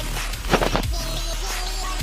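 Electronic background music with a heavy bass beat and a short whooshing sweep about half a second in.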